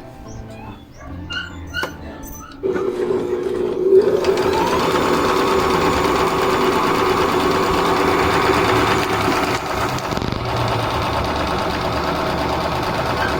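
A Juki Allowne computerised sewing machine starts running a couple of seconds in, picks up speed about a second later, then runs steadily while sewing a narrow stitch.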